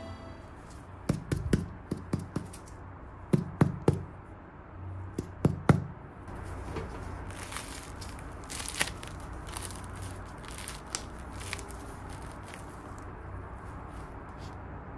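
The crisp crust of a baked sourdough olive ciabatta crackling as gloved hands squeeze and press the loaf. A run of sharp cracks comes in the first six seconds, then a denser, softer crackling that thins near the end.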